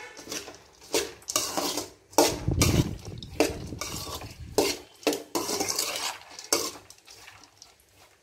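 Steel spoon stirring and scraping through popped sorghum in a large metal kadai. It makes a run of irregular scraping, clattering strokes, about one every half second to a second.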